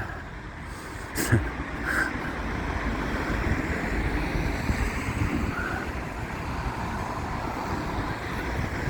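Road traffic passing, a steady rumble of cars that swells from about two seconds in, with wind buffeting the microphone.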